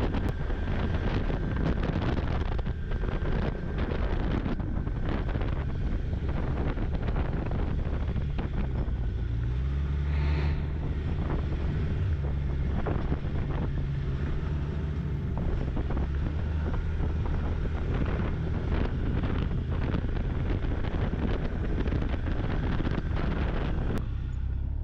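Snowmobile engine running under way, its pitch rising about nine seconds in and then holding steady. Wind rushes over the microphone.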